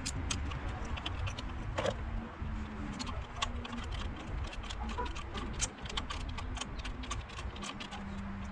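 Irregular metallic clicks and clinks of hand tools working on a BMW N55 engine to take out a spark plug, over a steady low rumble.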